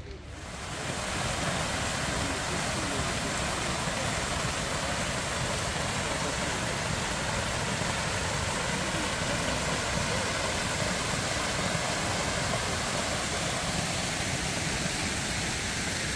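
Large fountain's jets and falling water rushing steadily, coming up over about the first second and then holding even.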